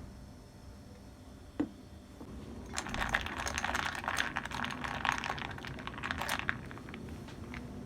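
Close crinkling and rustling of something being handled, a dense run of small crackles lasting about four seconds, after a single light click.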